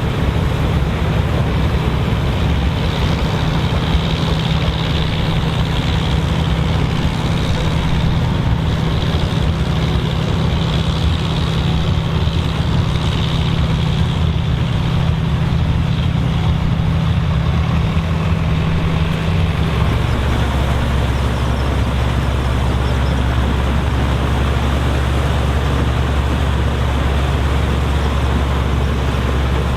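Vintage combine running steadily while harvesting corn: a low engine drone under the noise of the working machinery. The engine note changes and settles lower about two-thirds of the way through.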